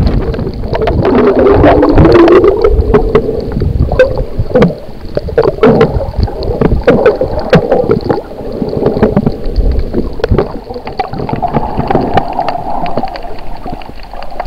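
Muffled underwater noise picked up by a camera held beneath the surface while snorkeling: uneven water rushing and sloshing with many scattered sharp clicks and knocks.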